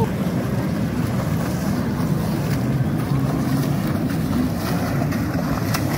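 Steady wind rumble on the microphone over the wash and splashing of shallow sea water around swimmers.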